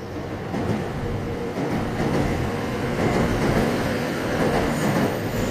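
Electric train approaching and running past, getting louder over about the first two seconds and then holding steady.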